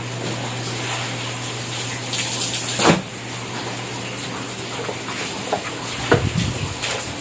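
Water running and splashing steadily as rain leaks into a house, over a low steady hum, with a sharp knock about three seconds in and a few more about six seconds in.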